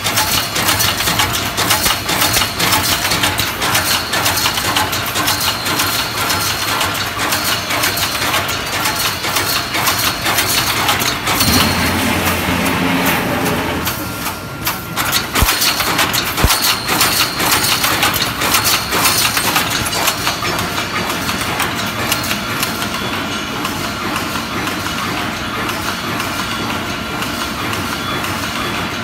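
DP-AW-1200E chicken-cage mesh welding machine running automatically, with a rapid run of knocks and clatter over steady machine noise. A low hum joins in for about two seconds near the middle. The sound turns smoother and slightly quieter in the last third.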